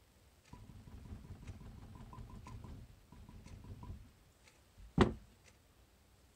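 A spatula stirring thick hot-process soap batter in a crock-pot insert: a low, uneven scraping and squelching for about three and a half seconds. About five seconds in comes a single sharp knock, the loudest sound.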